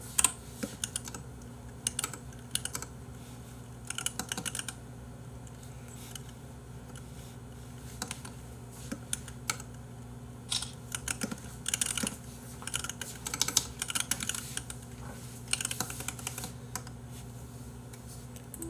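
Typing on a computer keyboard in short, irregular bursts of clicks, over a low steady hum.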